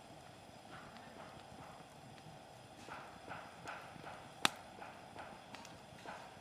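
Hardwood campfire crackling, with a run of soft clicks and knocks in the second half and one sharp, loud pop about four and a half seconds in.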